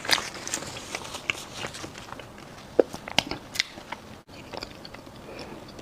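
Close-miked biting and chewing of crunchy mi san dao, a fried honey-glazed Chinese pastry: irregular crisp crunches, the loudest a little under three seconds in, with a brief break just after four seconds.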